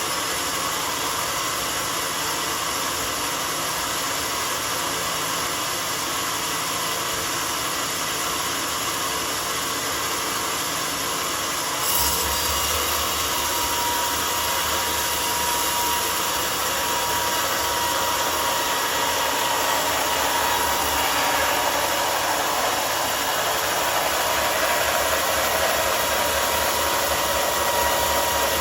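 Homemade sawmill running and cutting a mahogany log, a steady machine noise. About twelve seconds in it turns a little louder and deeper and a faint steady whine joins it, as the load on the saw changes.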